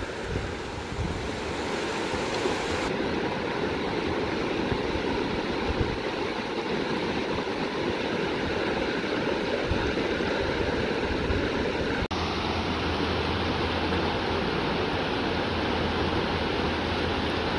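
Shallow rocky river rushing and babbling over stones in small rapids, a steady, even rush of water. About twelve seconds in the sound cuts for an instant, and a low steady hum joins the water after it.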